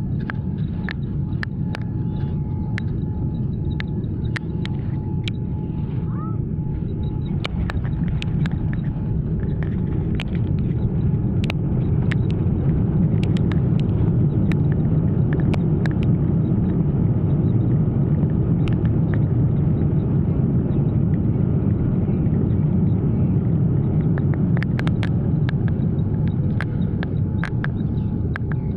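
Cabin noise of a Boeing 787-9 airliner on the ground after landing: a steady low rumble from the engines and wheels, with frequent sharp rattles and clicks from cabin fittings. The rumble grows louder about twelve seconds in and eases slightly near the end.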